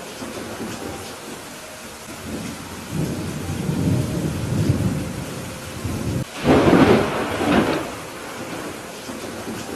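Thunderstorm with steady rain falling. A low rumble of thunder swells about three seconds in, then a sudden loud thunderclap about six and a half seconds in rolls on for a second or so.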